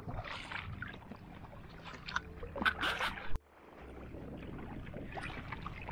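Kayak paddles dipping and splashing in sea water beside an inflatable kayak, a few irregular splashes over a steady wash of water. The sound drops out abruptly for a moment about three and a half seconds in.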